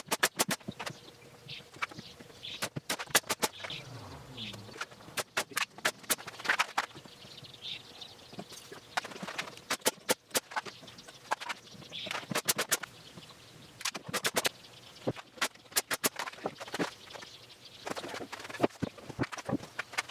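Short runs of sharp, rapid taps or clicks, three to five quick strokes at a time, repeating every second or two, with faint rustling between them.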